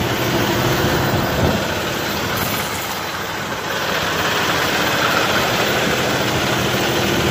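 Peterbilt semi-truck's diesel engine idling steadily, heard close up as a broad rushing drone that grows a little louder about halfway through.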